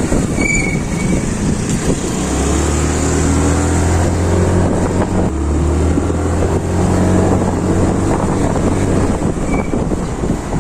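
Yamaha Ray ZR scooter's single-cylinder four-stroke engine running under way, its pitch rising and falling a little with the throttle, with wind rushing over the microphone.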